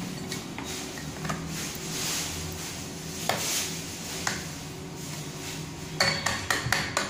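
Light clicks and clinks of small plastic and metal parts being handled as a bearing is fitted onto a copier's OPC drum, with a quick run of sharp clicks near the end, over a low steady hum.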